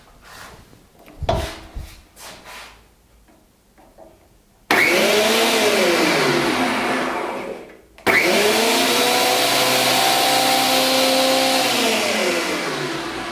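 Combined jointer/thickness planer switched on, starting abruptly with a loud whine, switched off after a couple of seconds and spinning down, then switched on again, running steadily and winding down near the end. A few light knocks come before the first start.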